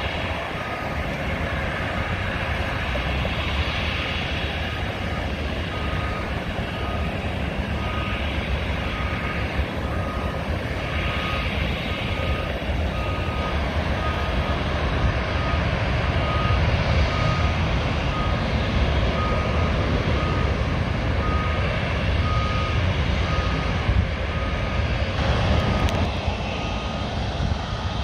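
A vehicle's reversing alarm beeping about once a second, steady in pitch, over a steady low rumble of traffic and aircraft engines; the beeping stops shortly before the end.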